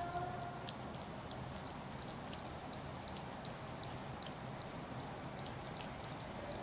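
A cat eating soft tofu from a saucer: small wet licking and chewing clicks, about two a second.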